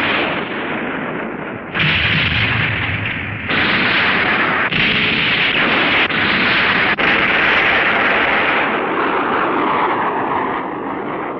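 Dubbed explosion sound effects for a monster blowing up in a shower of sparks: a run of loud blasts about a second or two apart, each a rushing roar, dying away near the end.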